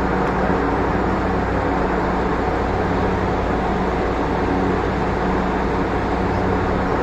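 Light-rail train running along the track, heard from inside the driver's cab: a steady rumble of wheels on rail with a constant low hum.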